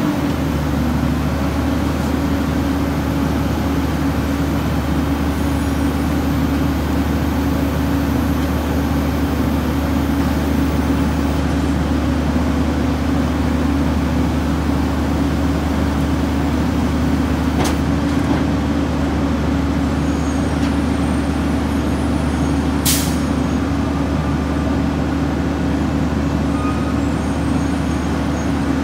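Heil 5000 rear-loader garbage truck running its hydraulic packing cycle, the engine held at raised revs to drive the packer blade as it compacts a Christmas tree in the hopper: a steady drone with a low hum. A brief hiss about two-thirds of the way through.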